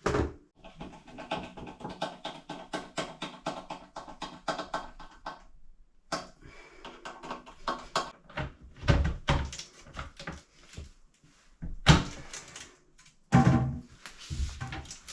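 Background music with a quick ticking beat over held notes for the first few seconds. Then a few loud knocks and clunks, most likely the toilet seat and its fixings being handled.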